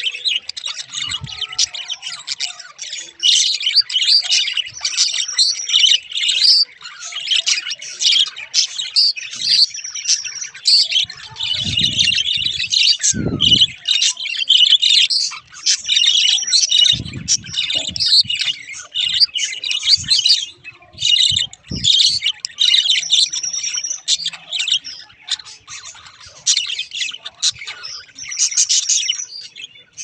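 Budgerigars chattering and warbling without a break: a dense run of short, high chirps and squeaky notes. A few low thuds come about twelve and seventeen seconds in.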